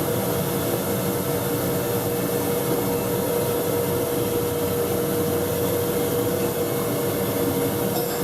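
Steady running of woodworking-shop machinery in a ukulele factory: a motor or blower held at a constant hum over an even rushing noise.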